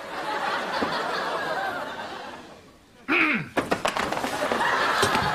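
Sitcom studio audience laughing, fading away near the three-second mark. Then comes a brief cry from a voice with a few sharp knocks and clatters, and the laughter rises again.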